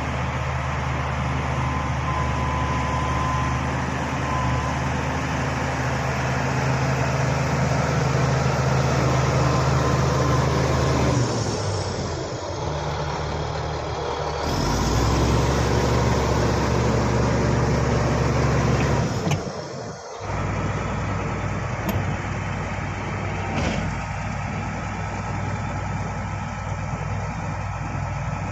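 Bulldozer's diesel engine running under working load, its low steady note shifting twice partway through and dropping out briefly about two-thirds of the way in before picking up again.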